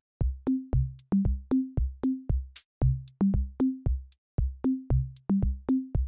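Electronic background music: a drum-machine beat of short, quickly fading bass notes that climb in pitch in repeating groups of four, about three to four notes a second.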